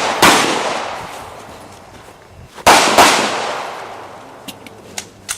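Pistol shots fired on a course of fire: one shot just after the start, then a quick pair about two and a half seconds later, each with a long echoing decay. A few faint clicks follow near the end.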